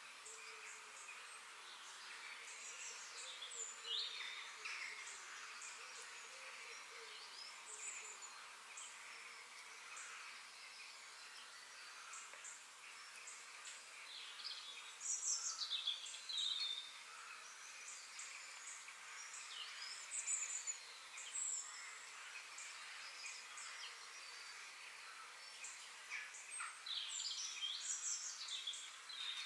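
Forest birds chirping and calling in short, high, quick notes scattered throughout, with louder bursts about halfway through and near the end, over a faint steady hiss of woodland ambience.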